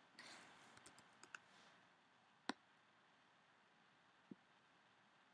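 Near silence with a few faint, sharp computer clicks while a font size is being changed. There are some soft clicks in the first second and a half, one clearer click about two and a half seconds in, and another faint one past four seconds.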